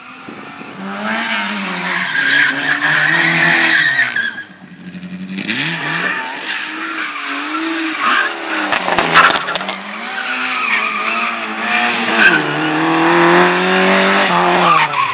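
A competition car's engine revving hard and falling back as it is thrown through a slalom course, with its tyres squealing. The sound drops away briefly about four and a half seconds in before the revving picks up again. A cluster of sharp cracks comes around nine seconds in.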